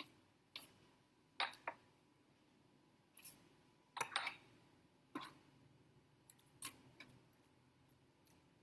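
About a dozen light, irregular clicks and taps of a spoon against bowl and plate as tomato paste is dolloped onto pan-fried zucchini bites.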